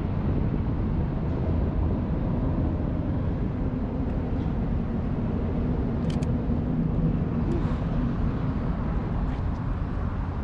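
Steady low rumble of distant traffic, with a few faint clicks about six and seven and a half seconds in.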